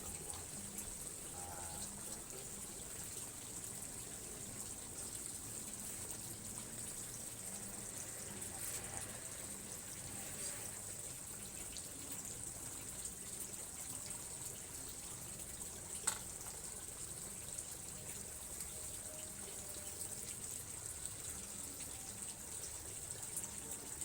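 Steady background wash of running water with a constant high hiss, faint distant voices now and then, and a single sharp click about 16 seconds in.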